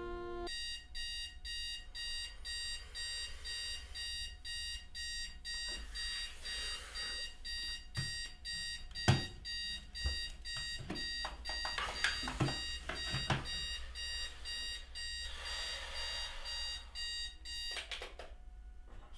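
Electronic alarm clock beeping: a fast, even run of high beeps that starts about half a second in and cuts off near the end. A few sharp knocks come through the middle as a hand slaps at the clock.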